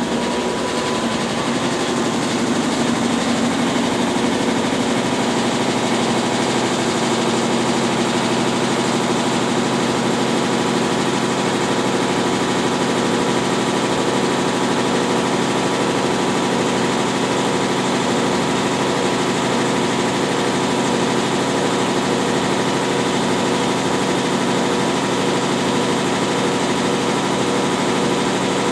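Consul Facilite 10 kg CWC10 washing machine running its wash stage: a steady motor hum with a whine that rises a little in pitch about a second in, then holds steady.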